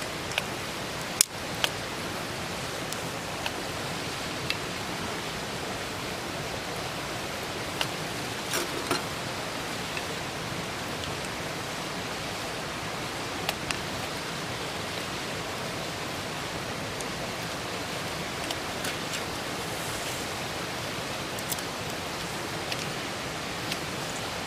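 Steady hiss of a pot of kimchi hot pot steaming on a camp stove, with a few short metallic clicks and clinks from the lid and ladle.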